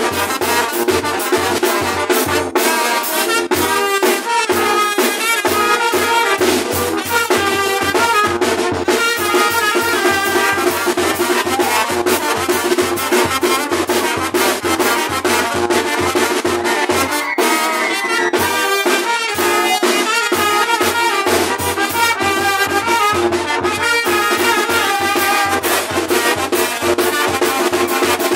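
A brass band plays carnival dance music, with trumpets and trombones over a steady drumbeat, loud and without a break.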